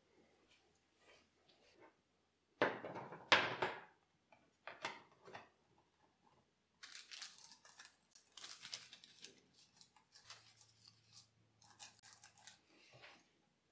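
Rustling and crinkling as a sheet of paper is handled and pressed into a triangular wooden frame by hand. Two louder rasping noises come about three seconds in, then a run of small crinkles through the second half.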